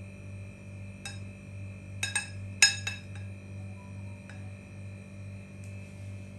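Metal spoon clinking against a glass baking dish while smoothing a pudding layer: about six light ringing taps between one and four and a half seconds in, the loudest a little past two and a half seconds. A steady hum runs underneath.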